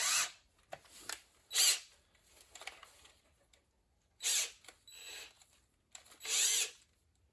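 Power drill run in several short bursts, each under a second, with pauses between, drilling out a stripped bolt hole in cast iron with an oversize helicoil drill bit.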